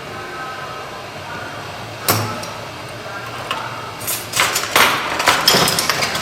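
A scraping tool scraping hardened underfill glue off a phone motherboard. One sharp scrape comes about two seconds in, then a quick run of scrapes and clicks near the end, over a steady hiss.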